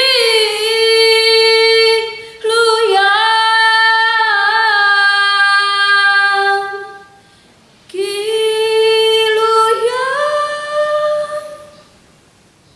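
Teenage girl singing solo without accompaniment, in three long held phrases with short breaths between them; the voice fades out about a second before the end.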